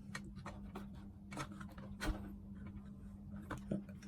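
Small clicks and light rubbing from handling a multimeter and its test leads, a few ticks a second, with a louder click about two seconds in, over a faint steady hum.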